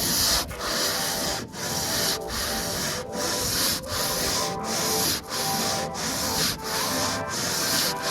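Hand sanding with a longboard over cured body filler on a fibreglass boat hull: even back-and-forth rasping strokes, roughly one and a half a second. Background music plays underneath.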